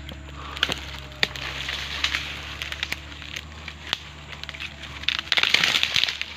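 Dry oil palm fronds and fibrous trunk debris rustling and crackling as they are brushed against, with scattered sharp snaps. It grows into a dense crackle about five seconds in.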